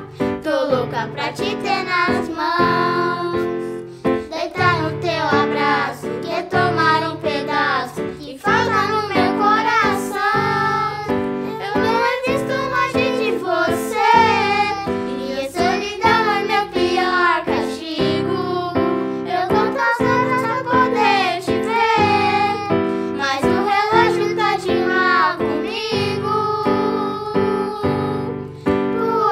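Young girls singing a Portuguese-language pop song together, accompanied by chords and bass notes on a Yamaha electronic keyboard.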